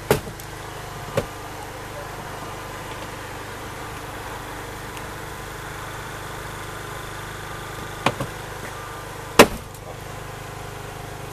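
Engine of a hydraulic rescue-tool power unit running steadily, with a few sharp metal knocks as the rescue tool works on the car, the loudest about nine seconds in.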